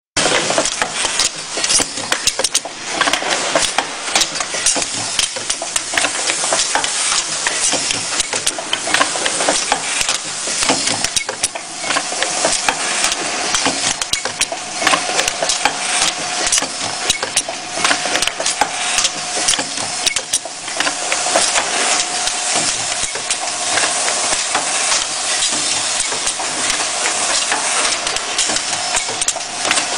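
Pneumatic ring cap filling machine running: a dense clatter of small clicks and knocks over a steady hiss, with a faint steady whine through the middle stretch.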